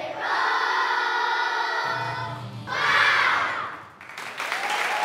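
A group of children singing together, ending on a loud final note about three seconds in, followed about four seconds in by audience applause.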